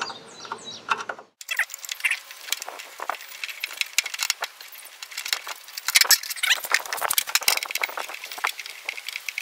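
Phillips screwdriver backing screws out of the sheet-metal panel of a vertical pellet smoker: a busy run of small metallic clicks and scrapes, with a short break a little over a second in.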